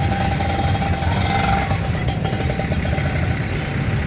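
Bus engine running close by, a steady low rumble.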